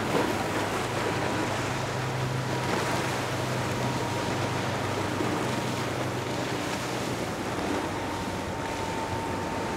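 Pro-Line 25 Walkaround boat running at speed, a low steady engine drone over rushing water and wind noise on the microphone; the drone fades about three-quarters of the way through.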